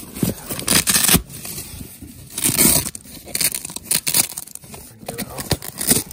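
Hook-and-loop (Velcro) fastening of a removable compartment in a Monument tool case being ripped apart in several short, irregular bursts, with fabric rustling between them.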